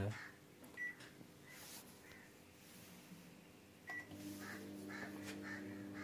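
Samsung microwave oven's keypad beeps twice as buttons are pressed, about a second in and just before four seconds. The oven then starts and runs with a steady low hum, heating normally again now that its blown fuse has been replaced. Crows caw faintly in the background.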